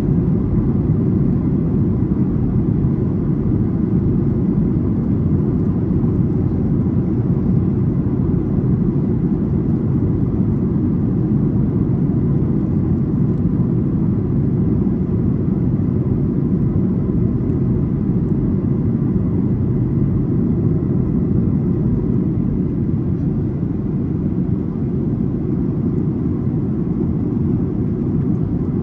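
Steady low rumble inside a Boeing 737 airliner cabin, from the engines and the airflow, with a faint steady whine riding above it.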